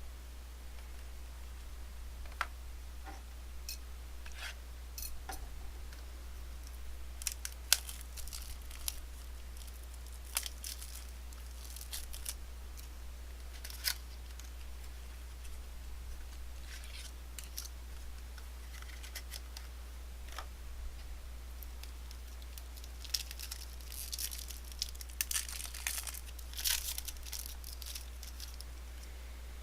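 Trading-card packaging being opened and cards handled: scattered sharp clicks and short crinkling, tearing rustles, busiest in two stretches, over a steady low hum.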